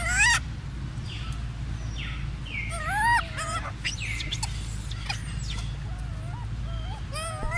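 Macaque calls: several high, pitched cries that rise and fall in pitch, the loudest about three seconds in and a rising one near the end, with short high downward chirps between them.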